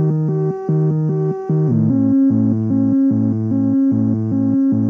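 Korg Volca Bass analogue synthesizer playing a pulsing ambient bass sequence at 75 bpm with a 0.2-second delay/reverb, heard through a small 10-watt practice amp. The repeating notes step down to a lower pitch a little under two seconds in.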